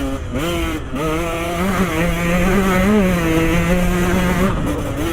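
Dirt bike engine under way, revving up and down with the throttle. It dips twice early on, holds a steady high note for about three seconds, then drops and climbs again near the end.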